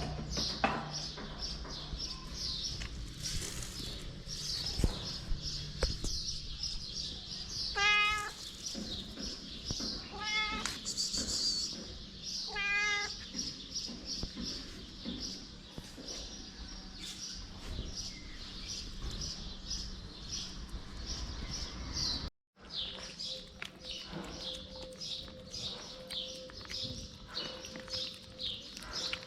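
Cats meowing: a steady stream of short, high mews repeating two or three times a second, with three longer, lower meows about a third of the way in. The sound drops out for an instant about three-quarters of the way through.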